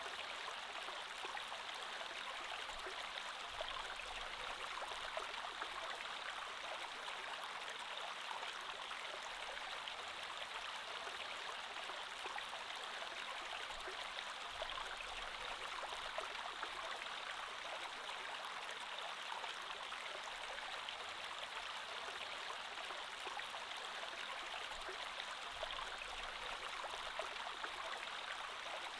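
Creek water flowing steadily over stones, an even babbling rush with fine splashing detail.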